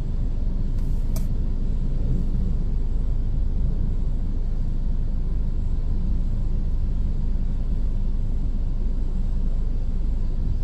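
Steady low rumble heard from inside an idling ground vehicle's cab on the airport apron, with one short sharp click about a second in.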